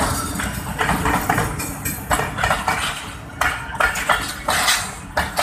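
A train's locomotive and passenger coaches passing close by, steel wheels clattering and clanking on the rails in a rapid, irregular series of metallic knocks over a steady rumble.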